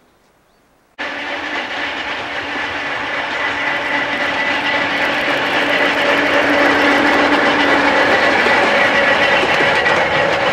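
Vintage Siemens-built electric locomotive hauling freight wagons past, a steady running noise with a held whine under it. From about halfway through, rapid clicking of wheels over the rail joints joins in. The sound starts suddenly about a second in.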